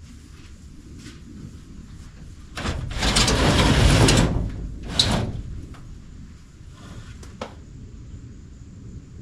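A loud sliding or scraping noise lasting about a second and a half, followed by a single sharp knock and a few faint clicks.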